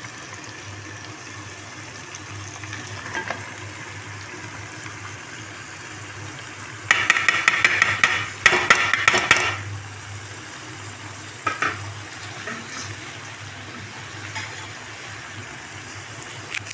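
Metal spoon scraping and clattering on a steel plate as chopped bottle gourd is pushed off it into a pot of frying chicken masala, over a steady low sizzle. A burst of rapid scrapes and clinks comes about seven seconds in and lasts a couple of seconds, with a single clink a little later.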